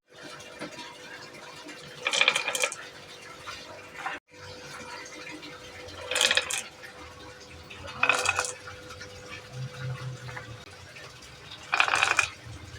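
Marbles clattering and clinking down a toy marble run in short bursts, about four times, over a faint steady hum.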